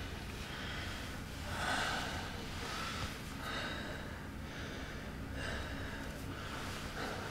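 A man crying: several short, breathy sniffs and gasping breaths spaced through the moment.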